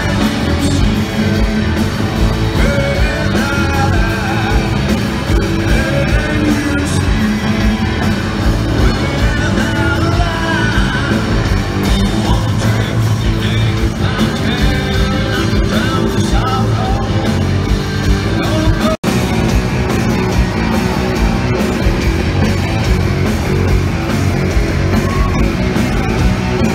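Live rock band playing loud, with a singer's vocals over guitars and drums. The sound cuts out for an instant about two-thirds of the way through.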